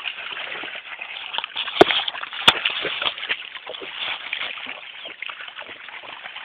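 Shallow water sloshing and splashing, with many small ticks and two sharp clicks a little under a second apart about two seconds in.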